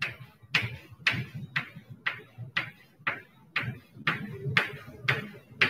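Chalk on a blackboard, drawing small circles in short strokes: a steady series of quick scratchy taps, about two a second.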